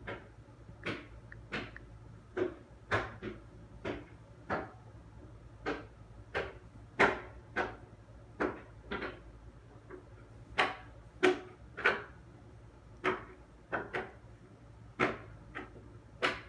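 An irregular series of sharp taps and knocks, roughly one to two a second, some much louder than others, over a faint steady low hum.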